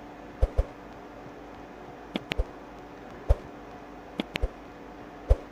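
About eight short, sharp clicks, several in close pairs, over a faint steady room hum.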